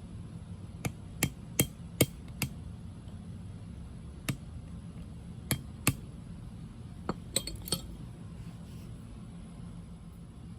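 Sharp taps of a small hand axe striking a stick held against an opened pocket knife's blade on a wooden stump, knocking the blade over to centre it. About a dozen light, clinking hits in three quick runs: five, then three, then four.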